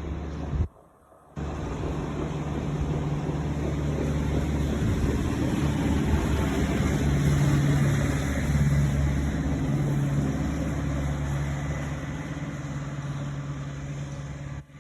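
A steady motor rumble with a hiss over it. It drops out for about half a second near the start and cuts off suddenly at the end.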